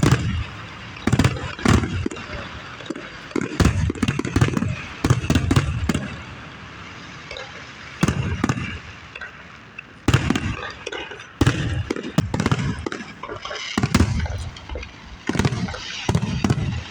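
Aerial fireworks display: shells bursting in irregular booms, several per second at times, with crackling between them and a short lull midway.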